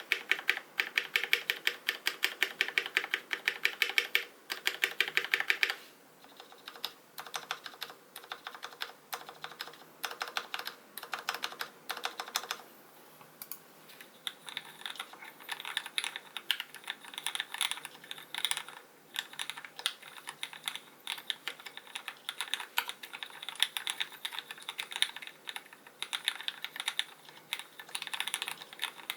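Continuous typing on a custom Canoe Gen.2 mechanical keyboard with lubed linear Cherry MX Black (Hyperglide) switches, GMK keycaps and an aluminium plate: a dense run of soft keystroke clacks. The typing is louder for the first six seconds or so, then softer.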